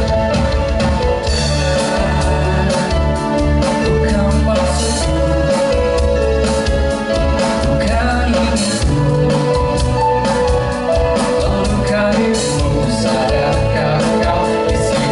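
A band playing a rock song with guitars, bass and drums, with a sung vocal over it.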